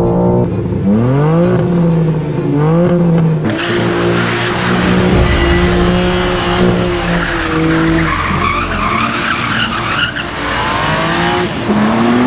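BMW M4 Competition's twin-turbocharged 3.0-litre inline-six revving hard, its pitch climbing and falling away at each gear change. From about three and a half seconds in, tyres squeal and skid over the engine.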